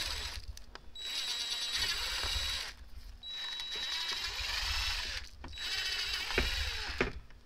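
DeWalt cordless drill running in short bursts, about four, with a steady high motor whine, as a twist bit enlarges pilot holes through a Sea-Doo's plastic body panel.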